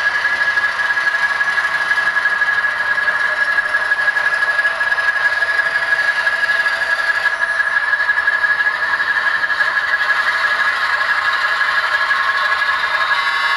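HO-scale Atlas ALCO RS-1 model diesel locomotive running slowly: a steady high-pitched whine at constant pitch over an even hiss.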